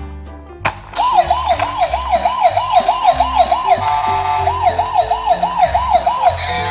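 Emergency-vehicle siren in a fast yelp, its pitch sweeping up and down about three times a second, breaking into steady tones briefly in the middle and again near the end. Background music with a steady bass line plays underneath.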